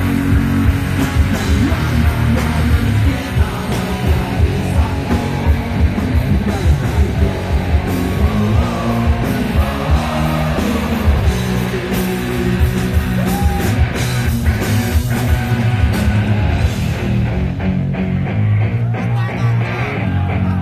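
Rock band playing live, with electric guitars, bass and drums keeping a steady beat, loud and continuous.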